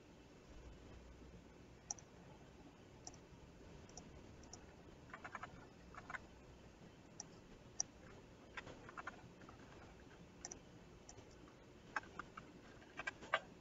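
Faint computer mouse clicks and keyboard key presses, some single and some in short clusters, spaced about a second apart.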